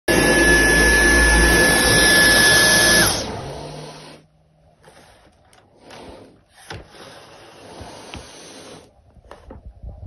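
Cordless stick vacuum cleaner running with a loud high whine, then switched off about three seconds in, its whine dropping as the motor winds down. After that, a caracal hisses at it in quieter breathy spurts.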